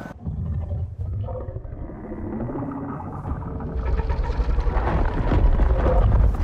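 Film sound effects of a giant monster breaking out of ice: a deep rumble, joined about four seconds in by louder cracking and crumbling that builds toward the end, with creature-like noises in the mix.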